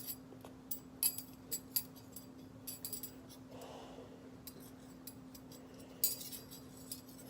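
Small hard magic-trick props clinking and clicking as they are handled, in scattered clusters, with a soft rustle in the middle, over a steady low hum.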